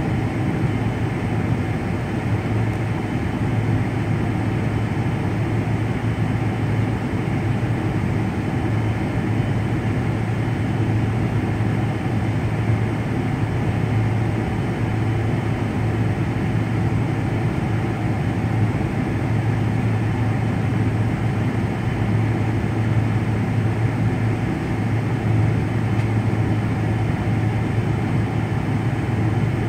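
Steady cabin drone of a jet airliner sitting on the ground with its engines at idle, heard from inside by the wing: a deep constant hum under an even rush of noise.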